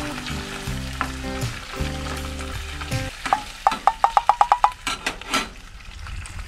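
Food sizzling in a frying pan as a metal spatula stirs and scrapes through a thick sauce, with a few sharp scrapes and clinks of the spatula against the pan in the second half.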